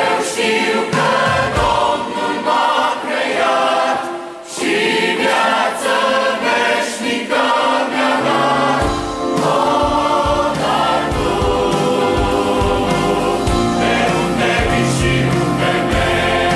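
Large mixed youth choir singing a Romanian gospel song in harmony, accompanied by a band of guitars, keyboard and drums. The band's low end comes in fuller about halfway through.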